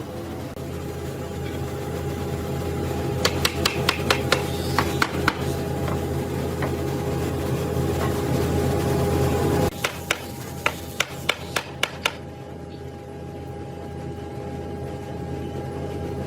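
Steady hum of a machine motor running, with a noisier stretch that cuts off suddenly about ten seconds in. Two quick runs of sharp knocks or taps, one a few seconds in and one just after the cut-off.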